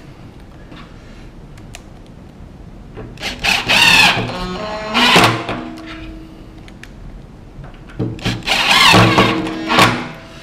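Power drill-driver running in two bursts, each a few seconds long with a motor whine that rises and falls in pitch as it drives a fixing screw into the chipboard worktop.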